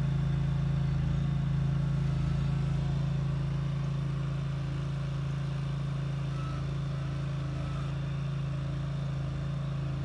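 Small engine of a ride-on bunker machine running steadily at a constant speed, a steady low hum that sounds like a lawnmower.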